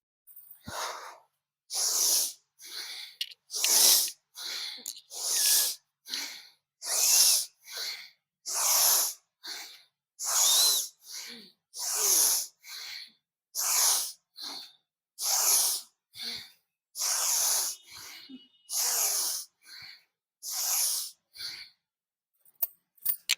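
A woman breathing hard in a steady rhythm: a quick breath in, then a forceful breath out, about a dozen times. This is the paced breathing of a yoga hammer-strike exercise, breathing in as the hands rise and blowing out as they strike down.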